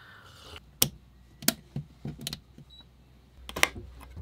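A few sharp, separate clicks about a second apart, the loudest near the end, as a red rotary marine battery switch is turned.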